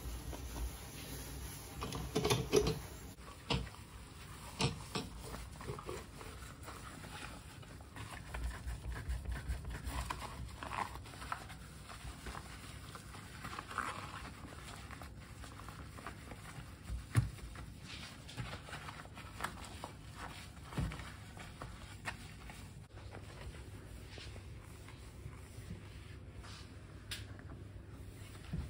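Rubber-gloved hands wiping a bathroom sink and chrome tap with a cloth: soft rubbing with scattered light knocks and clicks, the sharpest a little past the middle.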